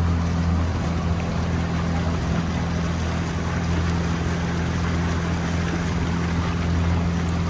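Motorboat engine running at a steady speed, a constant low hum, with rushing water and wind noise over it.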